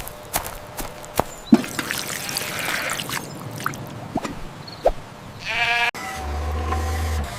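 A sheep bleats once, briefly, a little past the middle, among scattered light taps and clicks. A low steady hum follows near the end.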